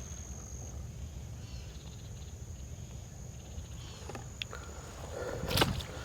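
Low steady rumble with a faint high steady tone over it. About five and a half seconds in come a couple of loud footsteps on the trail.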